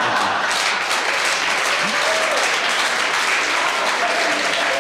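Studio audience applauding and laughing, a steady dense wash of clapping.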